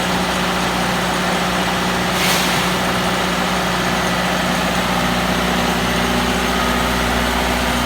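Diesel engine running steadily at idle, with a brief hiss about two seconds in.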